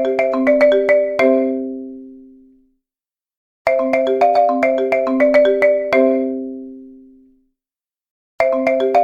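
Countdown timer alarm with a marimba-like tone: a quick phrase of about a dozen plucked-sounding notes that rings out and fades, repeating about every five seconds, three times.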